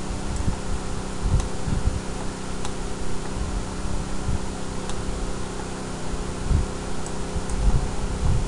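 Steady mechanical hum of several held tones, as from a fan, with irregular deep thuds and a few faint clicks.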